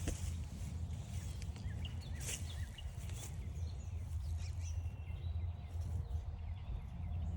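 Several short bird chirps and a thin whistled bird note over a steady low rumble, with two sharp crunching footsteps, one at the start and one about two seconds in.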